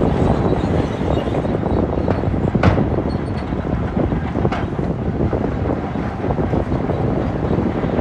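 Shantui DH17-C2 crawler bulldozer's diesel engine running under load as it pushes rock, a steady low rumble, with two sharp knocks a couple of seconds apart.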